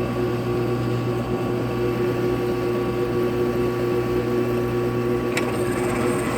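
Bucktool variable speed drill press running steadily with an even motor hum while it drills titanium with a stepped bit. A brief faint click about five seconds in.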